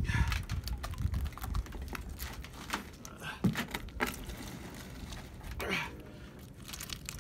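Encrusted metal chain being hauled out of the water and dragged across a wooden dock, its links clinking and rattling in quick, irregular clatters, with a low rumble in the first second or so.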